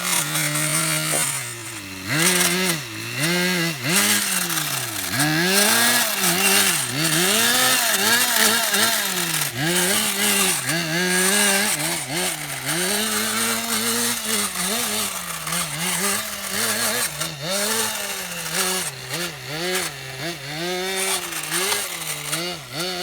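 Small two-stroke engine of a radio-controlled model running hard, its pitch rising and falling about once a second as the throttle is opened and closed over and over.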